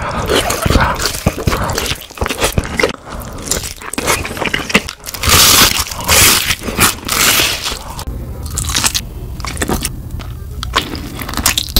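Close-miked crunching bites and chewing of crispy fried chicken, loud and irregular, with the loudest crunches about halfway through.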